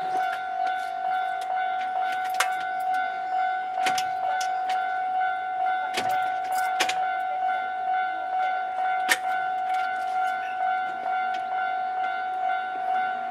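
Japanese railway level-crossing alarm ringing: a steady, high electronic clang that pulses in a regular rhythm. Sharp clacks cut in now and then.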